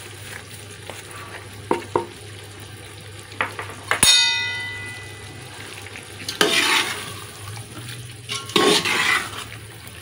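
A metal ladle stirring chickpea and potato curry in a large metal pot: a few light knocks, then a sharp clang about four seconds in as the ladle strikes the pot, which rings for over a second, and two scraping stirs near the end.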